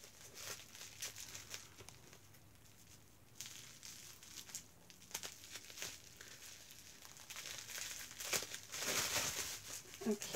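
Plastic wrapping on a small perfume spray bottle crinkling and rustling as it is worked open by hand, in irregular bursts, louder for a couple of seconds near the end.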